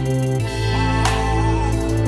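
Background music with held chords and a steady beat; the bass notes change a little under half a second in.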